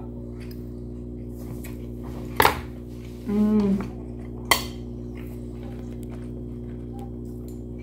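Cutlery clinking sharply against a plate twice, about two seconds apart, while eating, with a short hummed 'mm' between the clinks. A steady low hum runs underneath.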